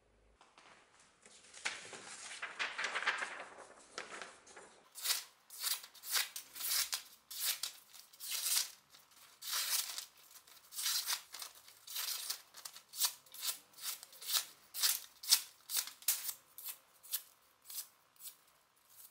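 Edge of a freshly restored butcher knife slicing through sheets of paper in a sharpness test: a run of crisp paper-cutting strokes, about one to two a second, starting about five seconds in. Before them, a rushing noise swells and fades for about three seconds.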